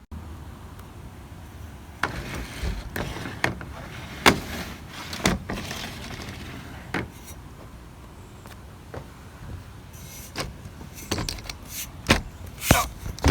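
Irregular knocks and clicks of hands and tools working a roof rack onto a pickup truck's cap, about a dozen sharp hits scattered through, over a steady low rumble.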